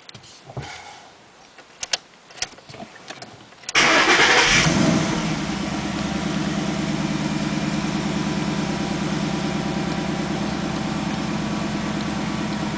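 A Ford Mustang GT's 5.0-litre V8 starting up, heard from inside the cabin: after a few faint clicks, about four seconds in the engine catches with a loud flare of revs, then settles within about a second to a steady idle. No knocking noise on this first start after a fresh oil change, the sign that the lifters and cams are getting enough oil.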